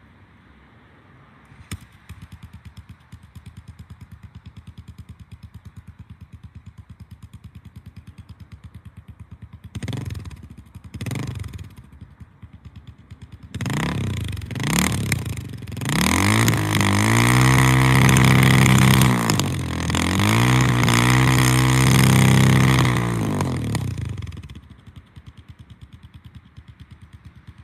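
Suzuki DR650 single-cylinder four-stroke engine through a loud custom exhaust with a modified, packing-wrapped baffle, heard from about 25 m away. It idles with an even pulse, is blipped twice briefly, then revved hard and held high twice before dropping back to idle.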